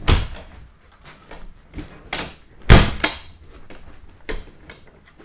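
A Seizmik soft door on a Polaris Ranger 1000 UTV being lifted and pushed shut against its latch: several knocks and clunks with small clicks between, the loudest a little under three seconds in. The newly hung door, its hinges not yet tightened, is being worked to catch the first stage of its latch.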